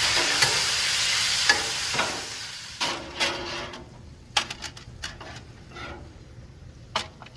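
Bacon jam sizzling on a hot Blackstone flat-top griddle as balsamic vinegar is stirred in with a spatula. The sizzle fades away after about two seconds, followed by scattered metal clicks and scrapes of the spatula.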